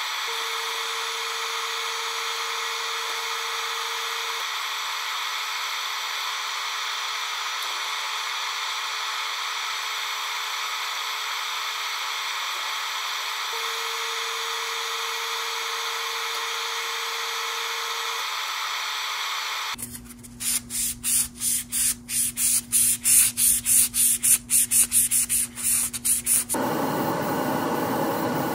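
Airbrush spraying paint in a spray booth: a steady, even hiss of air for most of the stretch. Then a louder hiss that pulses several times a second for a few seconds, and finally a rougher steady rush.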